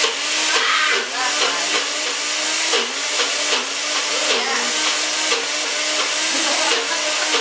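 NutriBullet personal blender running, blending thick brownie batter of shredded zucchini, cocoa powder, applesauce and flour. A steady motor whir whose pitch dips briefly now and then as the thick batter loads the motor.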